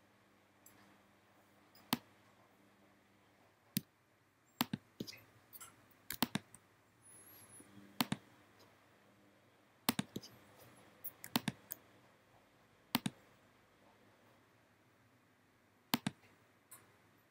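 Computer mouse clicks: a dozen or so sharp single clicks at irregular intervals, some in quick pairs and small clusters, over a faint low hum.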